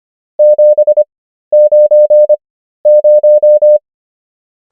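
Morse code practice tone, a pure mid-pitched beep keyed on and off, sending three digits, 7, 9 and 0, at 25 words-per-minute character speed with wide Farnsworth gaps between the characters. The second and third characters are made almost entirely of long dashes.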